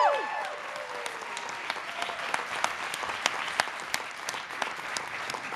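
Audience applauding, many hands clapping steadily, with a long whoop cutting off at the very start.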